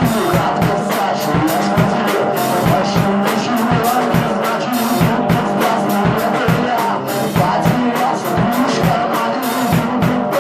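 Rock band playing a song: a steady drum-kit beat with cymbals under electric guitar.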